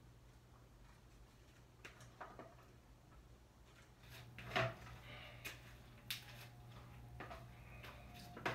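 Soft clicks and rustles from handling collard green leaves, with a sharper knock about halfway through, over a low steady hum.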